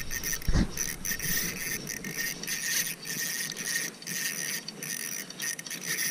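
Small spinning reel cranked steadily to reel in a hooked walleye, a fluttering mechanical whir, with jacket sleeve rustling against the microphone.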